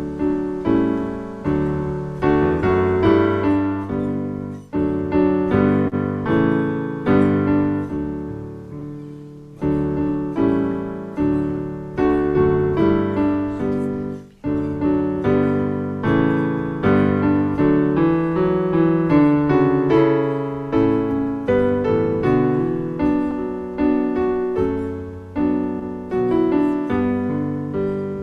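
Solo piano playing a slow, flowing piece of chords and melody notes, each note fading after it is struck; it begins just as the prayer ends.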